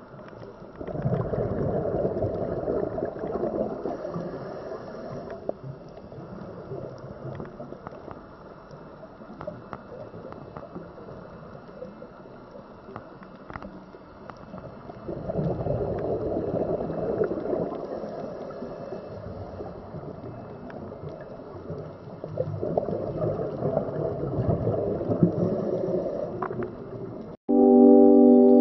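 Underwater ambience with a scuba diver's exhaled bubbles gurgling from the regulator in three long bursts. Organ-like background music cuts in suddenly near the end.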